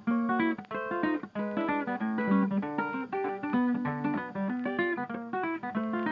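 Background music: a quick, rhythmic piece of plucked acoustic guitar.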